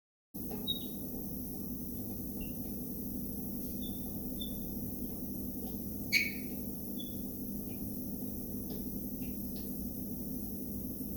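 A steady low hum with short, high chirps scattered through it, and one louder chirp about six seconds in.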